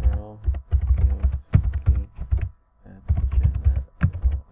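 Fast typing on a computer keyboard: quick runs of keystrokes, each with a low thump, broken by short pauses.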